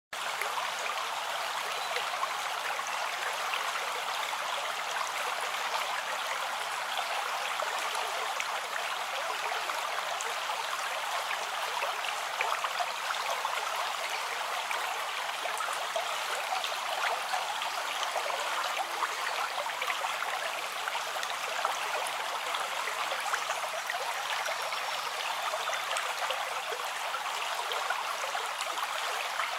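A river or stream flowing steadily: an even rush of running water.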